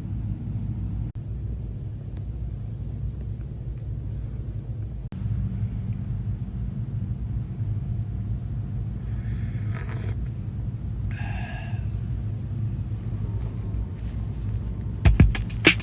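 A steady low rumble, like a vehicle running, with two brief fainter sounds in the middle. Music with sharp percussive strikes starts near the end.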